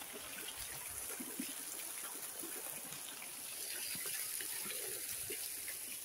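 Garden water fountain splashing steadily.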